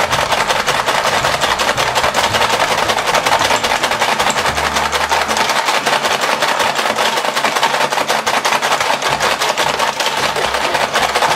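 A battery-powered Paw Patrol ball-racing toy running, its plastic mechanism and balls clattering in a fast, even stream of clicks as the pups gather up the balls.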